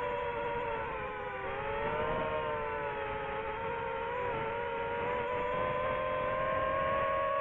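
DJI FPV drone's motors and propellers whining, the pitch dipping about a second in and then climbing again as the throttle changes.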